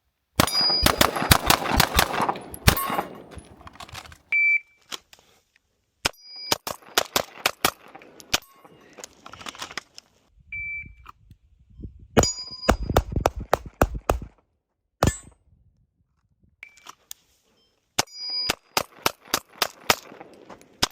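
Strings of rapid pistol shots from a double-stack 1911 taking Glock magazines, several shots fired in quick succession in each string, with short electronic beeps like a shot timer's start signal between strings.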